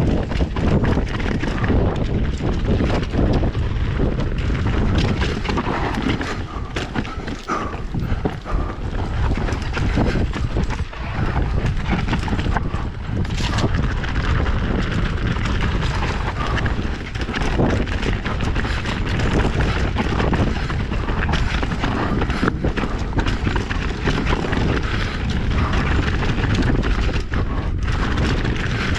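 Mountain bike rattling and clattering over a rough trail of rocks and roots, with many small knocks from the chain and frame. Wind buffets the microphone throughout.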